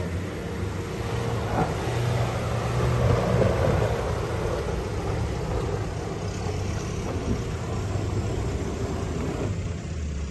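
Off-road 4x4 vehicle's engine running as it drives, getting louder about three seconds in and then settling again.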